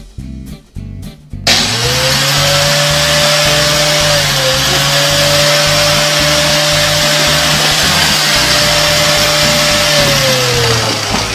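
A loud electric motor appliance switches on suddenly about a second and a half in. It runs as a steady whine over a rush of air, and its pitch falls as it winds down near the end.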